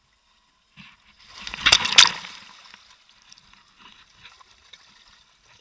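Water splashing and sloshing against the hull of a personal watercraft, swelling about a second in to two sharp slaps, then fading to faint lapping.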